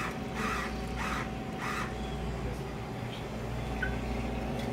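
Steady low mechanical hum with a faint constant tone from a juice-dispensing machine, its pump or motor running. A few soft hissing sounds come in the first two seconds.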